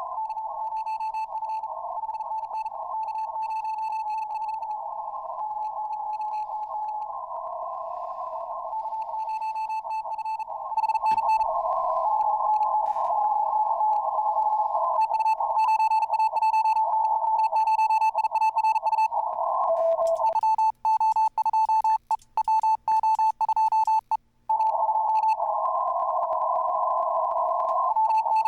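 Ham radio transceiver's CW audio: a steady Morse code tone keyed on and off over a narrow band of receiver hiss, with sharp on-off breaks clearest about twenty seconds in.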